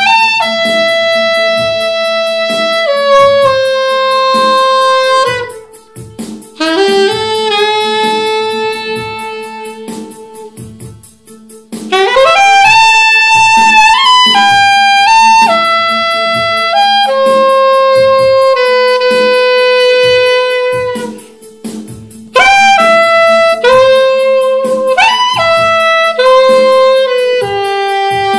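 Straight soprano saxophone playing a slow, free melody in phrases of long held notes, each phrase opening with a quick upward run, with three short breaks between phrases. A steady low drone sounds beneath it throughout.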